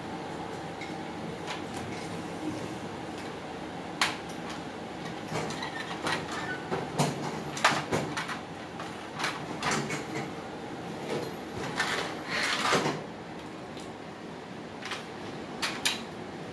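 Hard plastic toy-car track pieces and a track launcher clacking and scraping as they are handled and fitted together on a tiled floor, a run of irregular knocks and clicks over a steady background hum.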